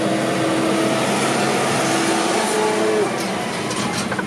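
Large farm tractor's diesel engine running as it passes close alongside a stopped car, heard from inside the cabin as a loud, steady drone that eases slightly about three seconds in.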